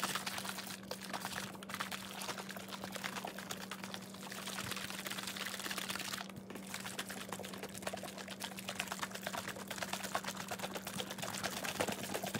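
Liquid sloshing and splashing inside a lidded smoothie shaker bottle shaken rapidly and continuously, mixing freeze-dried smoothie powder into water. A steady low hum runs underneath.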